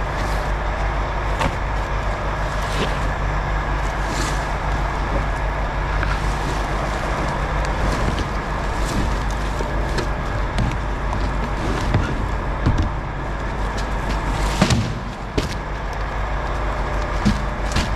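A vehicle engine running steadily with a low hum, with scattered knocks and clinks of rubbish being shifted in a bin.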